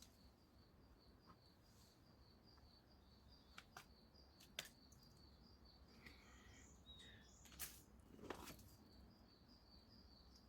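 Near silence: faint outdoor ambience with a thin high chirp repeating about four times a second, a short burst of bird-like calls about two thirds of the way in, and a few sharp taps.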